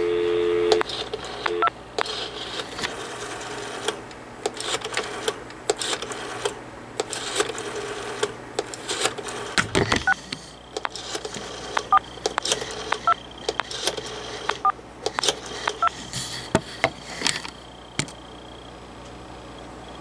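RadioShack 43-326D rotary dial telephone being dialed, heard through its handset. The dial tone cuts off within the first second, then come runs of quick clicks as the dial pulses out each digit, with a faint steady high tone joining about halfway through and stopping near the end.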